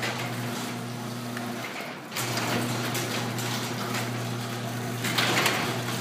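Garage door opener running, raising a sectional garage door along its tracks: a steady motor hum with rolling, rattling noise over it, dipping briefly about two seconds in.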